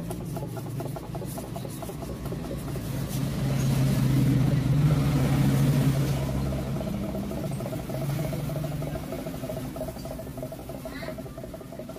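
Motorstar Explorer Z200's air-cooled single-cylinder engine running, with a knock that points to a worn connecting rod. The engine picks up speed about four seconds in, then settles back down.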